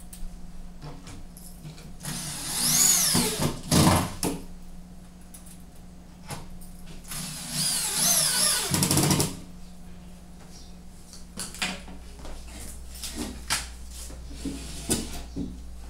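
Electric drill-driver driving screws into a cabinet panel in two bursts of about two seconds each, its whine rising and falling in pitch as it speeds up and slows. Scattered light knocks of panels being handled follow in the second half.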